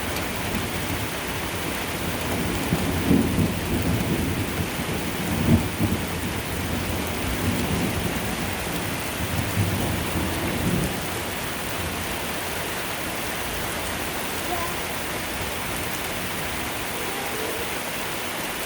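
Steady rain falling, with a long rolling rumble of thunder from about three seconds in to about eleven seconds, swelling several times and loudest around five and a half seconds.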